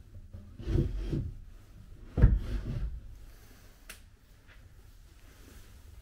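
A wooden drawer sliding open and then shut, the second stroke ending in a sharp knock, with a small click a second or so later.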